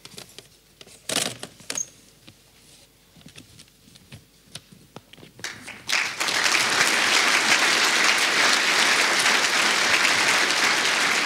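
Audience applause that breaks out suddenly about six seconds in and then holds steady, after a few seconds of low room sound with scattered clicks.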